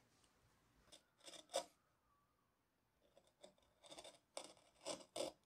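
Hand carving gouge slicing short flute cuts into a turned beech lampshade: a series of crisp, brief cutting strokes, about eight in all, coming faster and strongest near the end.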